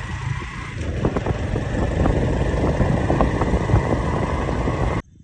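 A motor vehicle running close by, a loud steady rumble. It starts and cuts off suddenly about five seconds in.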